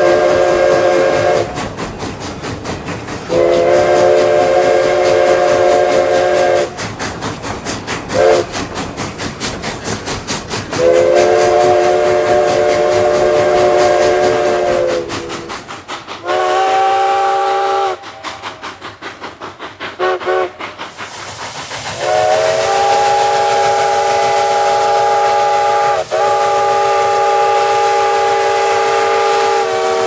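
Five-chime steam whistles on Cumbres & Toltec K-36 narrow-gauge steam locomotives. First No. 489's Nathan 5 chime blows a series of long blasts and one short toot, with the locomotive's exhaust chuffing in between. About halfway through, No. 484's Flat Top 5 chime takes over with a short blast, a brief toot and then one long held blast.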